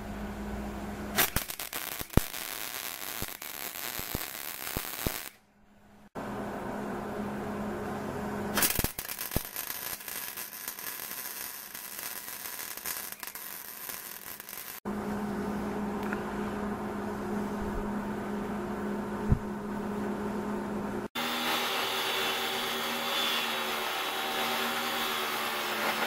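Stick (arc) welding on steel plate: the arc crackles and hisses in several separate runs. Near the end an electric saw with a metal-cutting blade runs and cuts a steel plate, a steady multi-tone whine over a loud hiss.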